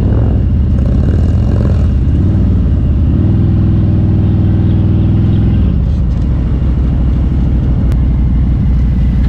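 Harley-Davidson Road King's V-twin engine running under way; the engine note rises a little under three seconds in, holds steady for a couple of seconds, then drops back about six seconds in.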